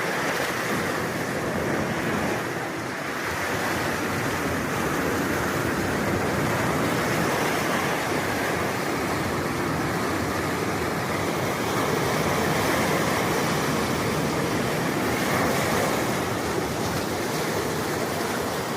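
Sea surf: waves breaking and washing in a continuous rush, easing briefly about two seconds in.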